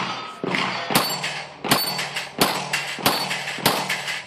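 A string of pistol shots fired at steel plate targets, about five sharp reports roughly two-thirds of a second apart, each echoing briefly.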